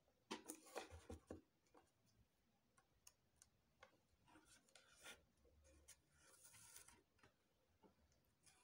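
Faint hand-sewing sounds: a needle and thread being pulled through a stiff mesh fascinator base while a plastic alice band is held against it. There is a quick run of small clicks in the first second or so, then scattered soft ticks and rustles.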